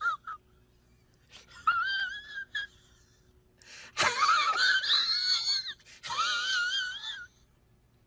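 A series of short, high-pitched, wavering wails. One comes about two seconds in, a louder and harsher one starts suddenly about halfway through, and a third follows near the end.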